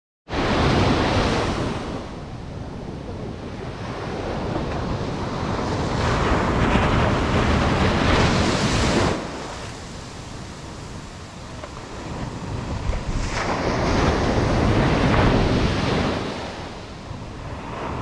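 Ocean surf breaking and washing up a sandy beach, the rush of water swelling and falling away in three surges, one of them dropping off sharply about halfway through.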